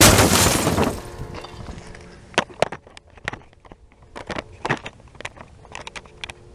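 A loud, sudden bang for about the first second, then a scatter of sharp clicks and knocks over faint, steady tones of several pitches.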